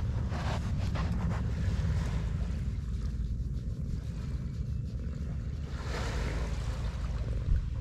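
Cat purring steadily as it is stroked, a low continuous purr, with wind on the microphone and surf behind.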